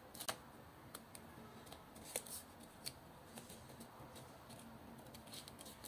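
Faint, irregular snips of small scissors cutting through folded paper.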